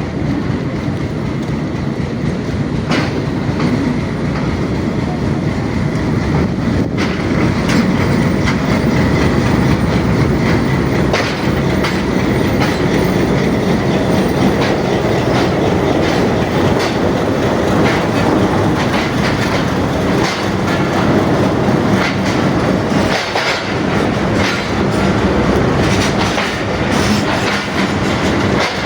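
Train moving along the track: a steady loud rumble with wheels clacking over the rail joints throughout.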